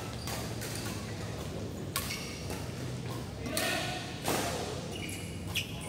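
Badminton rackets striking a shuttlecock: a few sharp hits spaced a second or more apart, the loudest about four seconds in, over a low steady hum in the hall.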